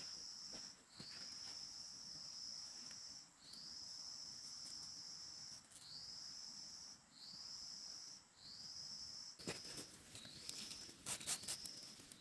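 An insect calls over and over in long high notes. Each note slides up at the start, then holds steady for a second or two before a short break. Near the end come sharp crisp snaps and rustles as a bunch of chive stalks is cut with a knife.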